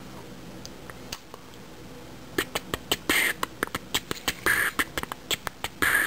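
Zippo lighter being handled as its insert is worked out of the metal case: a quick, irregular run of sharp metallic clicks and short scrapes, starting about two seconds in.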